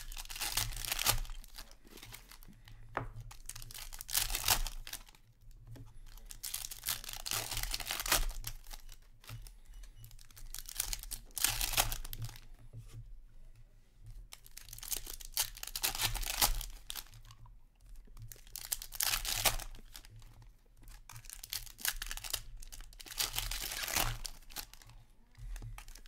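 Upper Deck hockey card packs being torn open one after another: wrappers tearing and crinkling in bursts about every four seconds.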